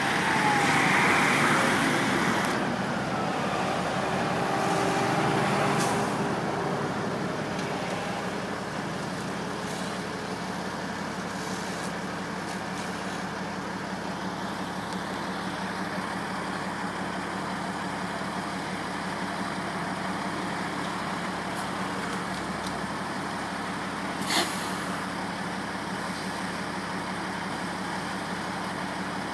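Heavy truck diesel engines idling steadily with highway traffic going by; in the first few seconds a passing vehicle's pitch falls as it goes past. One short sharp crack about three-quarters of the way through.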